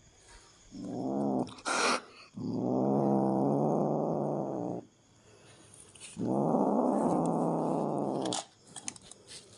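A cat growling: three long, low, drawn-out growls, the second and third each lasting over two seconds.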